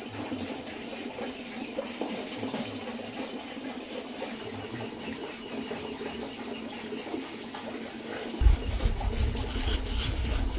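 A cleaver blade shaving the peel off a mango in short strokes. About eight seconds in, a low rumble sets in, opening with a thump.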